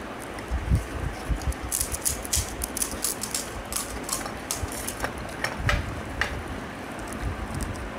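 Crisp golgappa (pani puri) shells being cracked open and crunched in quick eating: runs of sharp crackles and clicks, thickest in the middle, with a few low thumps over a steady hiss.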